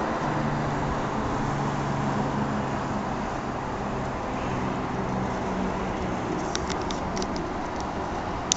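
Steady rushing background noise with a faint low hum, like road traffic or a running vehicle. A few light clicks come near the end, the last one sharp.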